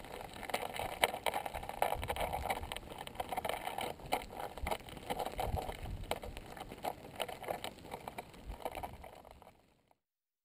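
Crackling and ticking of a small pahoehoe lava breakout as its cooling glassy crust cracks and shifts, over a steady rough hiss. The sound fades out near the end.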